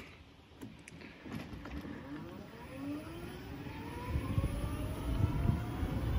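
A vehicle's motor whine rising slowly in pitch as it speeds up, with a low rumble that grows louder over the last two seconds.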